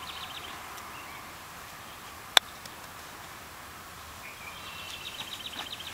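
A putter strikes a golf ball once: a single sharp click about two seconds in, over steady outdoor background hiss. Near the end a bird gives a rapid, high chirping trill.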